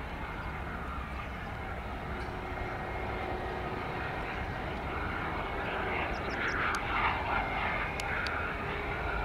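Airbus A320 jet engines running at low taxi power: a steady whine over a broad rumble, growing a little louder from about six seconds in.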